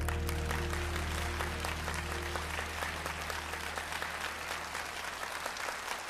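Studio audience applauding, a dense steady clapping, over the band's last held chord, which dies away in the first two or three seconds.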